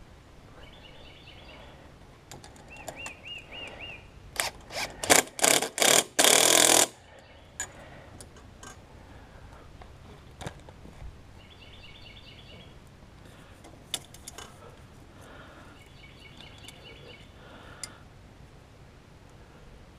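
Small birds chirping in short repeated trills. Between about four and seven seconds in comes a run of loud, short bursts of noise, the last one held for about half a second, along with a few sharp clicks and knocks of parts being handled.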